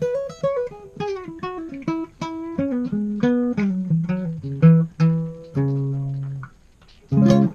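Intro music: a plucked guitar playing a short run of notes that steps downward in pitch. The last note is held and fades out about six and a half seconds in.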